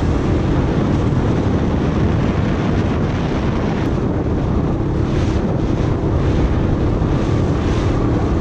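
Small open motorboat running at speed: a steady engine drone under wind buffeting the microphone and the rushing of the hull and spray through the water.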